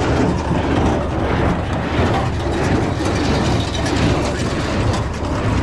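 New Holland 273 Hayliner square baler running behind a Ford 4000 tractor: the baler's mechanism clatters and ratchets steadily over the tractor's engine drone. The baler is working properly after being restrung.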